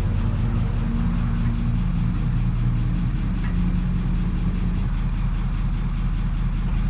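A vehicle engine idling: a steady low rumble with a hum that shifts slightly in pitch.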